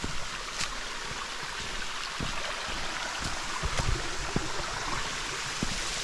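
Small stream trickling and running over stones, a steady rush of water, with a few light thumps scattered through it.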